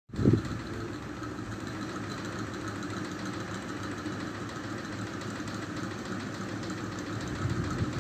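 A steady low rumble heard in the night sky, like a distant engine, with a hiss on top. It jumps loud just after it starts and swells again near the end.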